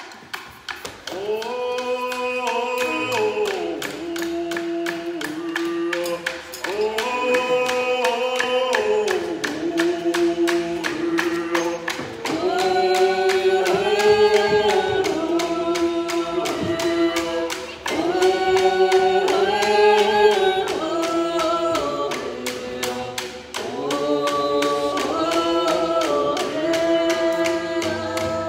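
Canoe family song: a group of men and women singing together in phrases, to a steady, even beat on hand-held frame drums. The voices break off briefly between phrases while the drumbeat keeps going.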